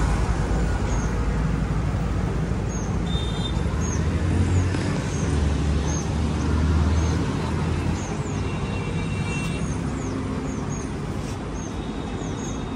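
Street traffic: a steady low rumble of road vehicles that swells about five seconds in as one passes close, then eases off. Short high chirps repeat at irregular intervals throughout.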